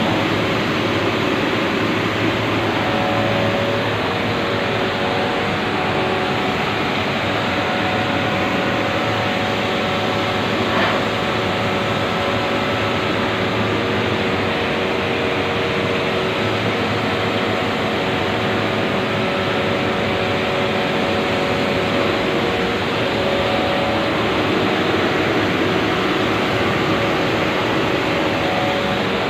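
Steady machine noise, an even whir with a few steady hum tones in it, like running refrigeration machinery with its fans and compressors going.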